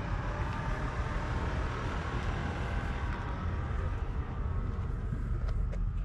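Steady low rumble of outdoor background noise, with a few faint ticks near the end.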